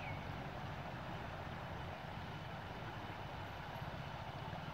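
Steady low rumble and hiss of outdoor background noise, with one short falling chirp at the very start.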